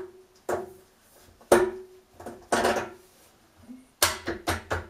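Plastic end cap being pushed and snapped onto the side edge of a steel panel radiator: a series of sharp knocks and clicks, some with a short ring, the loudest about a second and a half in and a quick run of clicks near the end.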